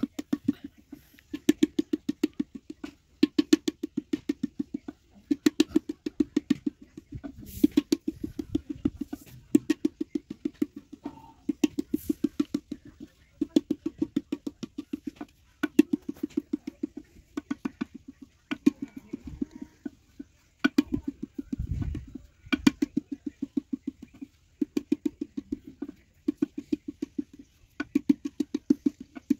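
Wooden paddle beating the wall of an unfired clay pot, in quick runs of knocks with short pauses between runs; each knock has a short low ring. The paddling shapes and thins the pot's wall.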